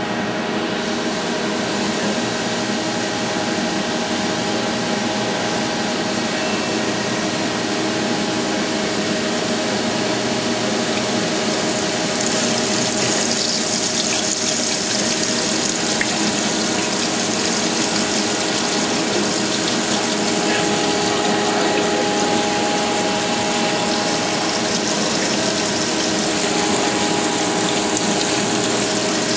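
Wasino Meister V3 CNC surface grinder running its automatic dressing and slot-grinding cycle. The machine gives a steady hum with several steady tones under the hiss of flood coolant, and the hiss grows louder partway through.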